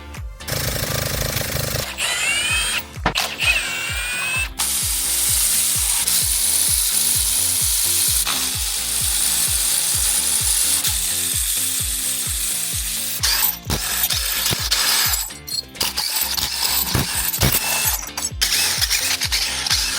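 Engine disassembly tool sounds: ratcheting and a power tool running steadily for about nine seconds from near the start, with background music throughout.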